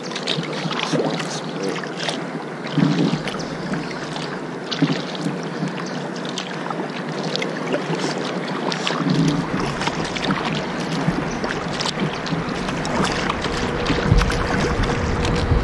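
Kayak paddling: paddle strokes splashing in the water, with irregular small knocks and drips. About nine seconds in, a low wind rumble on the microphone sets in, and a faint steady tone joins near the end.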